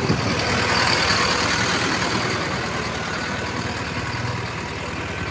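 JCB backhoe loader's diesel engine running, a little louder in the first second or so, then settling to a steady idle.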